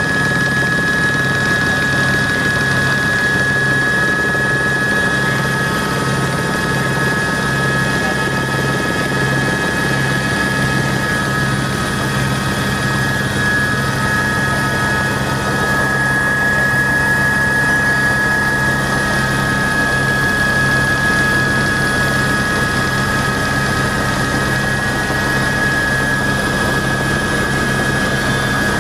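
Helicopter in flight: a steady high turbine whine over an even, low rotor beat, holding level throughout.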